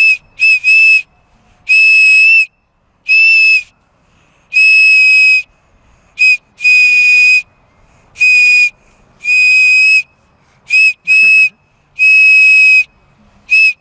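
Small Thomas and Friends toy whistle blown in a string of about fourteen toots, some short and some held for up to about a second, each one steady, high-pitched and so loud.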